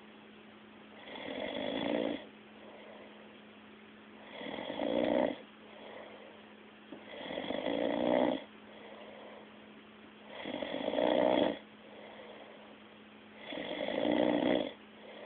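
A person asleep, snoring: five snores about three seconds apart, each swelling in loudness over about a second. A faint steady hum runs underneath.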